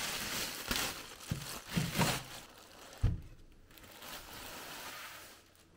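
Thin plastic bag crinkling and rustling as it is pulled up and off a 3D printer, with a dull thump about three seconds in.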